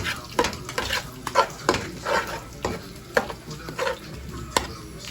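Meat frying in a pan and being stirred: a utensil scrapes the pan in short, irregular strokes, two or three a second, over a steady sizzle.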